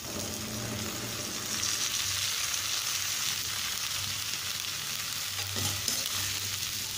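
Oil sizzling in a kadai as parboiled, drained cauliflower is tipped in over frying onion, garlic and green chillies, then stirred with a spatula. The sizzle grows a little stronger about a second and a half in.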